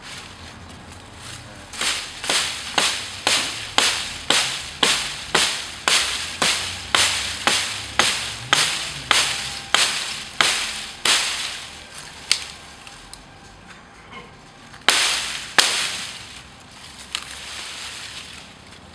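A blade chopping into a green poplar branch: a quick, steady run of sharp chops, about two a second, for roughly nine seconds, then a few scattered single chops.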